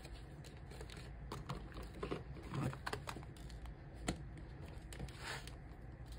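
Clear plastic cash envelope in a ring binder being handled: soft plastic rustling and scattered light clicks as bills are slid into the pocket and it is pressed shut.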